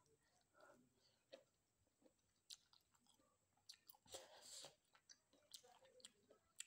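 Faint close-miked chewing of a mouthful of rice and dry fish: soft wet mouth clicks and smacks, with a louder noisy chewing sound about four seconds in.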